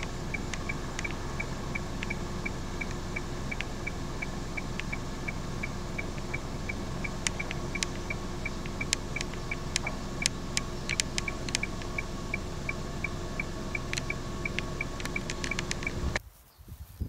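A steady mechanical hum with a fast, regular high ticking, about four ticks a second, and scattered sharp clicks in the second half; it all cuts off abruptly about sixteen seconds in.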